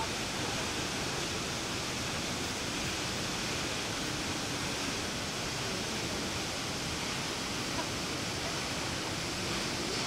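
Tall plunge waterfall rushing steadily: a constant, even rush of falling water with no change in level.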